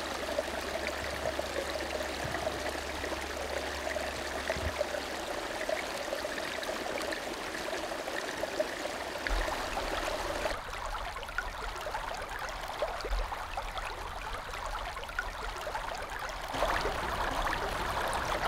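Creek water running steadily, a continuous trickling wash. Near the end it becomes a somewhat louder rush of a wider, shallow river.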